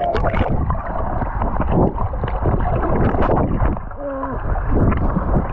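Wave-pool water sloshing and splashing right at an action camera, with rumbling and knocks against the housing. A voice calls out briefly about four seconds in.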